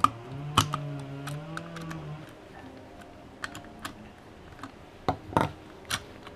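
Scattered light clicks and taps from a small screwdriver and the plastic housing parts of a veterinary slit lamp being handled during disassembly, with a few sharper knocks about five seconds in. A low steady tone, rising slightly, sounds underneath for the first two seconds.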